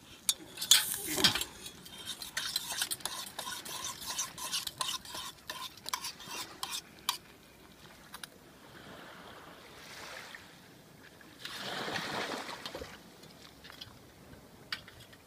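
A metal spoon stirring and scraping in a metal camping pot, with many quick clinks for the first seven seconds or so. After that comes a softer rushing noise that swells twice.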